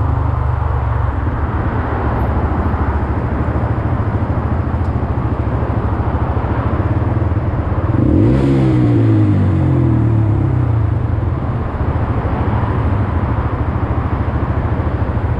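Honda Grom's 125cc single-cylinder engine running under way, with wind and road noise. About eight seconds in it revs up and falls back, briefly louder.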